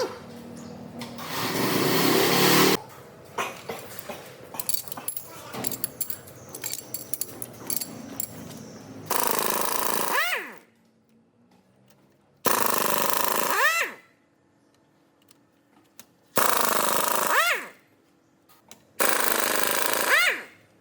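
A power tool run in four short bursts of about a second and a half each, every one ending with a bending whine as it winds down, after a longer burst and some light clicking and clattering of parts.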